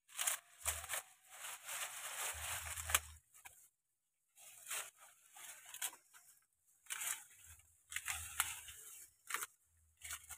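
Maize leaves being stripped by hand from the stalks: dry and green leaves rustling and tearing in repeated bursts with sharp cracks, separated by short pauses.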